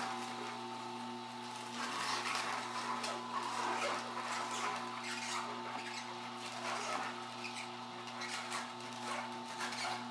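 Horizontal masticating juicer running with a steady motor hum while its auger crushes bok choy pressed down the feed chute with a plunger, giving an uneven crackling, crunching rustle over the hum.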